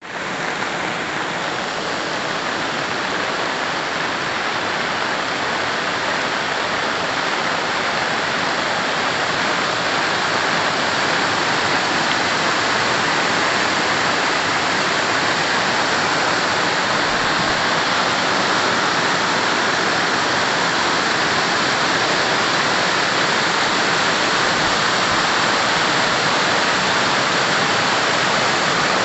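Floodwater from a creek breaching its bank, rushing across a road and pouring over a low brick wall: a loud, steady rush of water that grows a little louder over the first ten seconds and then holds.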